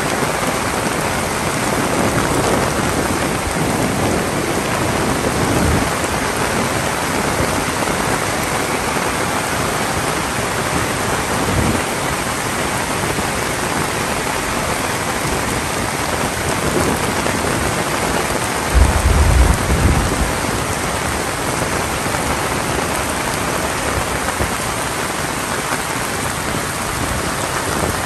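Heavy rain falling steadily, with a brief deep rumble about two-thirds of the way through.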